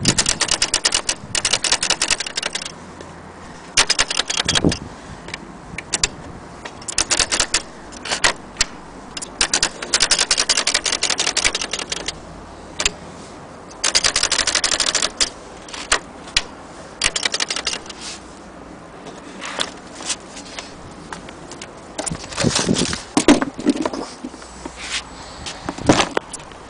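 Vintage Erika portable typewriter being typed on: runs of rapid key strikes lasting a second or two, separated by short pauses.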